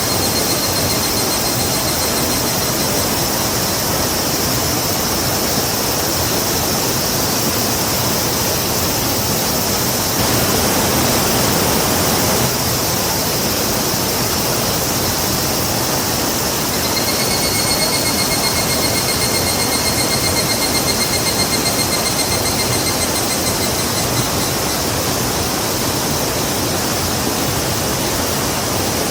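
A river rushing, a loud, even noise throughout. A high, steady whining tone joins it for the first few seconds and again for several seconds in the second half.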